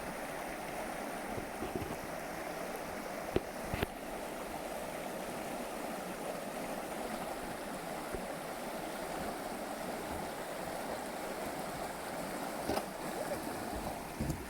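Steady rush of flowing water, with a few short sharp knocks about three and a half seconds in and again near the end.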